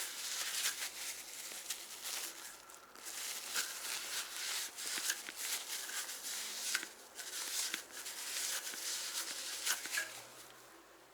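Dirt being rubbed and wiped off a bicycle rear hub shell: a dense, scratchy rustle with many small clicks, which eases off near the end.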